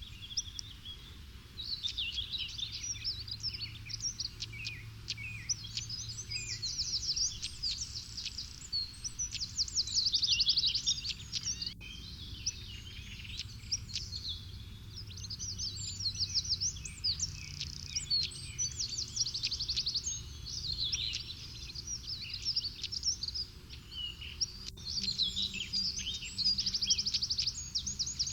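Small songbirds singing: rapid, high twittering and trilling phrases a few seconds long, repeated with short pauses, over a low steady background rumble.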